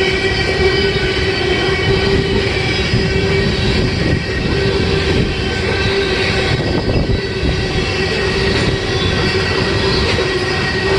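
Freight train rolling past close by: a steady rumble of wheels on rail, with a steady whining tone running through it.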